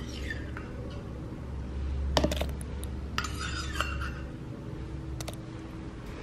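Clinks and knocks of kitchenware against a blender jar as pitted black olives are dropped into it, with sharp knocks about two seconds in and again near the end.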